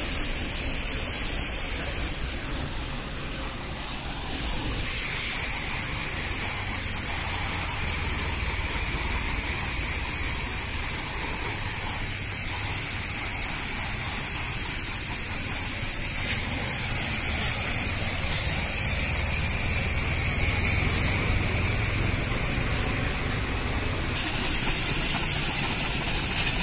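Jet pump spray of water hitting a split AC outdoor unit's condenser coil and fan: a steady hiss of spray with a low hum underneath.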